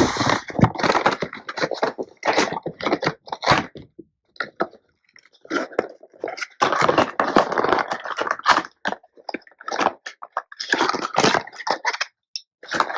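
Packaging being opened and handled: irregular crinkling, crackling and scraping with short clicks and knocks, in bursts with brief pauses.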